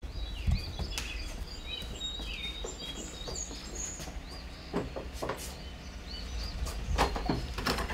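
Birds chirping in many short, quick calls over a steady low rumble, with scattered knocks and thumps that come more often near the end.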